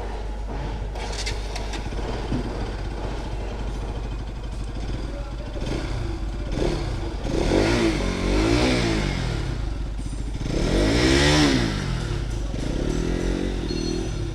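Bajaj Pulsar RS 200's single-cylinder engine running, revved up and back down twice, with a smaller rev near the end, as a mechanic checks the bike for worn-out clutch plates.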